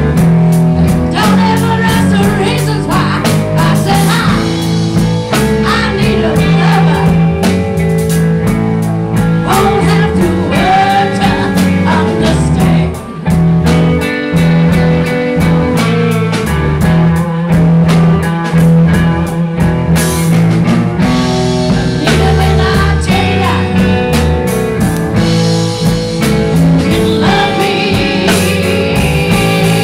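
Live blues band playing, with electric bass, guitar and drums, and a woman singing over it.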